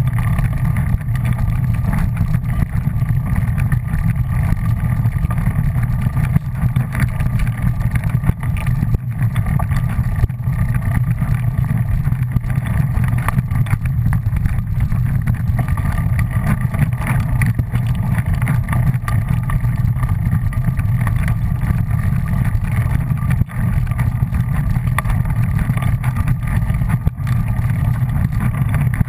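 Steady low rumble of wind buffeting and movement noise on a camera travelling fast along a leaf-covered dirt trail, unbroken throughout.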